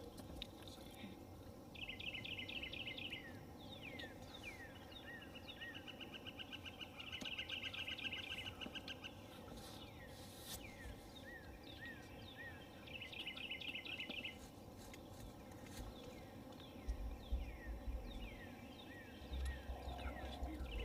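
Wild songbirds singing: several high trills of quick, even notes, each a second or two long, mixed with short falling and hooked whistled notes. Wind buffets the microphone near the end.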